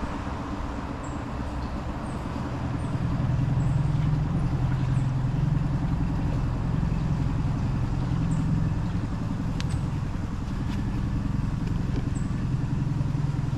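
Small boat's outboard motor running steadily under way, a low hum that grows a little louder about three seconds in.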